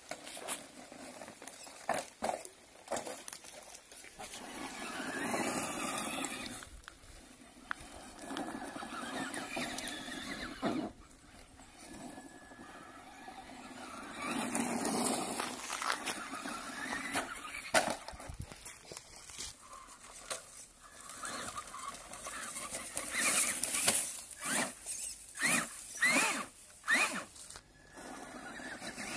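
Traxxas Rustler XL-5 RC truck driving over dirt and gravel: its brushed electric motor whines in bursts as it speeds up, rising in pitch near the end, with tyres crunching over the ground and scattered sharp knocks.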